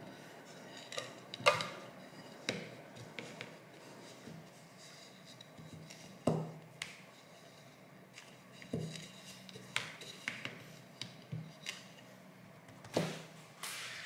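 Scattered light knocks and taps from hands and a rolling pin working bread dough on a countertop, about a dozen in all, the sharpest one about a second and a half in.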